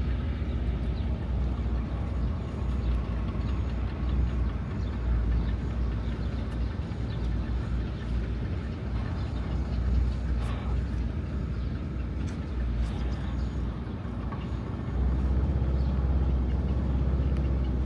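Motorboat's fuel engine running steadily, a low drone with a rushing noise over it; it gets louder about fifteen seconds in.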